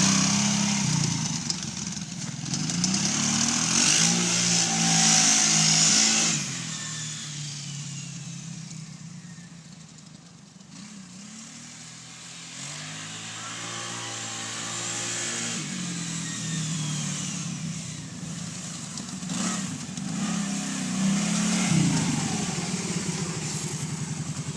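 ATV engine running and being ridden, its pitch rising and falling with the throttle. It is loudest over the first few seconds, fades to its quietest near the middle and comes back louder toward the end.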